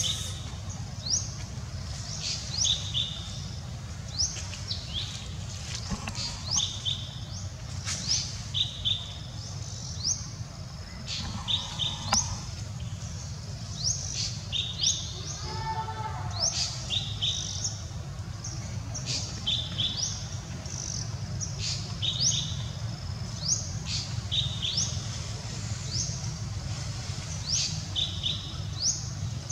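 A bird chirping over and over: short, high, rising chirps, often two or three together, every second or two, over a steady low hum. A brief, lower, wavering call breaks in about halfway through.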